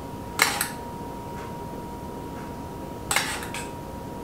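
A metal spoon scraping and clinking against a small stainless steel saucepan as glaze is scooped out, in two short bursts: one about half a second in and one about three seconds in.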